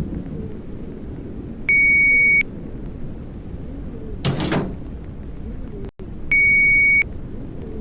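Two loud electronic beeps, each a single steady high tone lasting under a second, about four and a half seconds apart, with a steady low hiss between them and a short whoosh about four seconds in.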